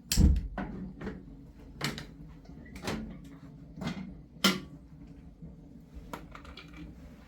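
A series of separate knocks and clatters, as of objects being handled or set down. The first, just after the start, is the loudest, with a dull thump, and about seven lighter knocks follow at irregular intervals over the next six seconds.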